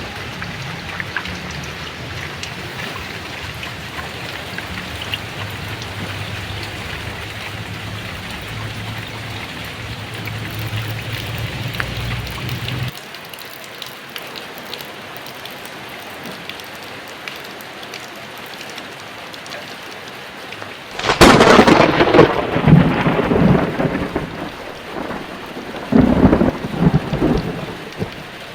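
Heavy rain falling steadily, with a low rolling rumble of thunder underneath that cuts off suddenly about halfway through. About three quarters in, a loud thunderclap cracks and rolls on, and a second loud peal of thunder comes near the end.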